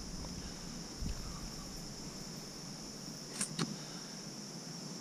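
Steady high-pitched chorus of crickets, with a couple of brief clicks about a second in and again about three and a half seconds in.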